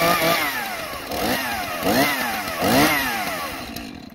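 Two-stroke chainsaw engine running after a clutch repair, revved up and down about three times, then shut off just before the end.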